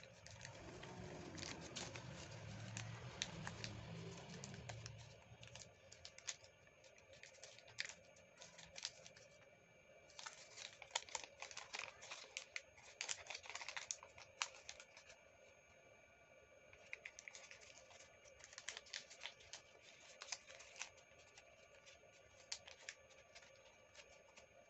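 A sheet of origami paper crinkling and crackling as hands fold and crease it, in quick irregular clicks.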